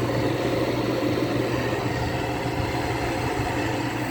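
Box fan and window air conditioner running together: a steady, even electric motor hum.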